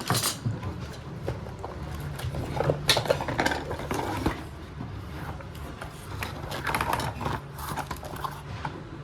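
Handling sounds of unboxing: irregular light clicks, knocks and rustling of packaging, heaviest in two spells, over a steady low hum.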